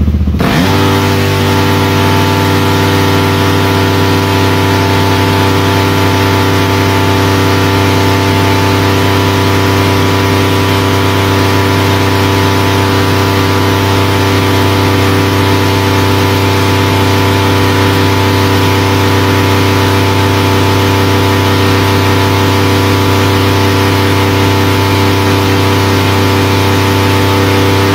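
Kawasaki motocross bike's engine, throttle taped wide open, revs up within the first half second and is then held on its rev limiter at one steady pitch.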